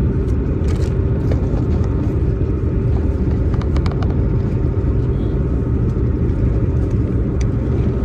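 Steady low rumble of a car heard from inside the cabin, with a few light clicks and rustles about a second in and again around the middle.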